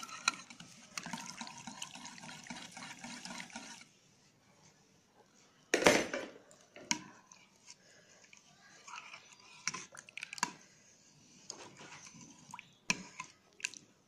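Electric hand mixer whisking milk and mashed khoya in a bowl, its motor running steadily and then cutting off suddenly about four seconds in. A loud knock follows about two seconds later, then a steel spoon clinks against the bowl now and then as the mixture is stirred.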